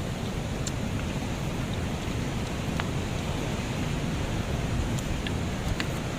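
Steady rushing of wind and surf, heavy and gusting in the low end, with a few faint ticks about midway and near the end.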